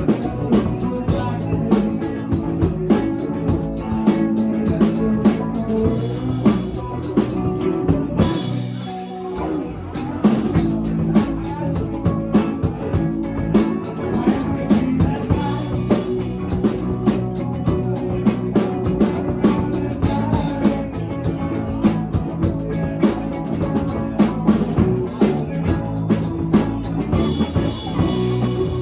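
Live band playing rock music, with a drum kit keeping a steady beat under guitar and bass. The drums drop out for a brief break about eight seconds in, then the band comes back in.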